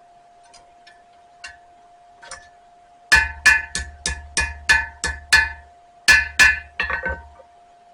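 Hammer blows on hot spring steel over an anvil, each strike ringing: a few light taps, then a quick run of about eight blows, a short pause and four more, as the knife blade is straightened after stamping the touch mark. A steady faint hum runs underneath.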